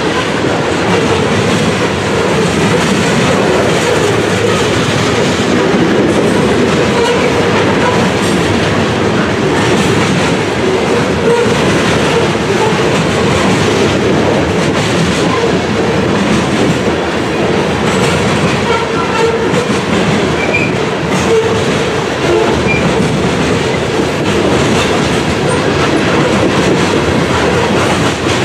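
A freight train of covered hopper cars rolling past close by: steady, loud rolling noise of steel wheels on the rails.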